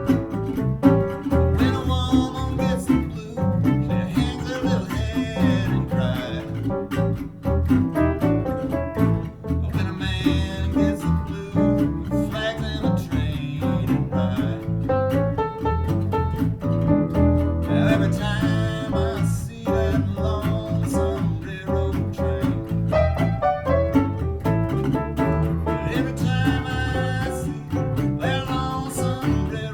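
Acoustic country band playing an old-time country blues tune on guitar and bowed strings over a double bass.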